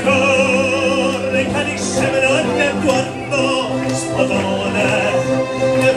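A man singing in operatic style into a microphone over backing music, holding long notes with vibrato.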